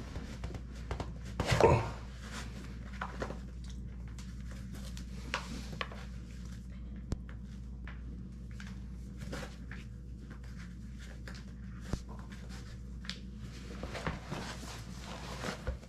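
Hands tightening the laces of mesh tennis shoes: rustling and scuffing of laces and shoe fabric with scattered small clicks and taps, and a louder scuffing thump about two seconds in. A steady low hum sits underneath.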